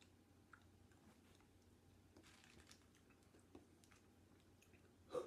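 Near silence with faint mouth clicks from chewing a jelly bean, and one sharper click near the end.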